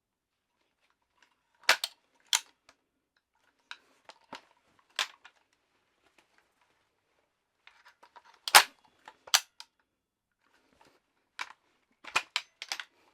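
Metal clacks and rattles from handling a Soviet Arms AKS-74U-style 'Krink' pistol: sharp single clacks in irregular clusters, the loudest about eight and a half seconds in, with softer rattling between them and a quick run of clacks near the end.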